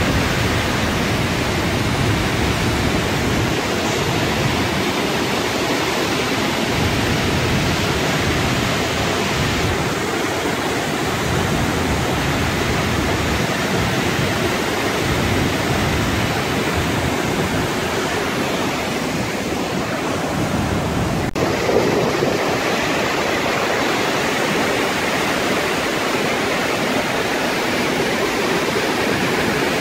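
A canyon waterfall in flash flood, muddy water pouring down the rock face and churning through the pool and rocks below: a loud, steady rush of water.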